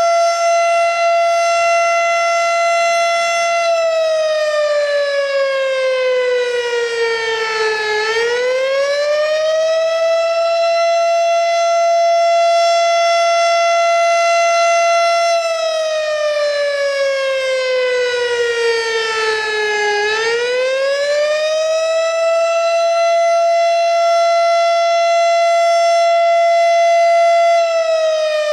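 Federal Signal STH-10 single-tone fire siren sounding the attack signal. It holds a steady wail for several seconds, slides down in pitch over about four seconds, then climbs quickly back and holds again, repeating about every twelve seconds.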